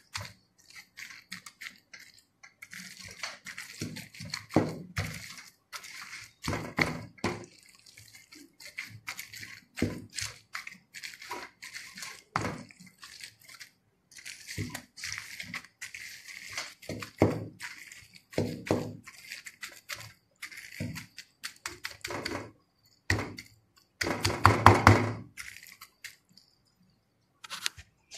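Wooden spoon mixing gravy-soaked bread pieces in a metal tray: irregular wet squelches, scrapes and knocks against the tray, with one louder, longer stroke about three-quarters of the way through.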